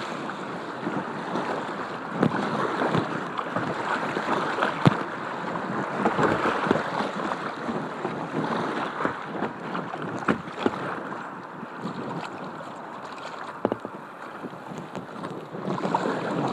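Creek water rushing and splashing around a kayak running a rapid, close to a deck-mounted camera, with scattered sharp splashes and knocks against the hull. The splashing swells again near the end.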